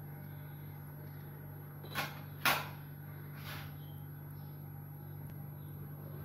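Steel kitchen utensils knocking together: two sharp clanks about two seconds in, half a second apart, and a softer knock a second later, over a steady low hum.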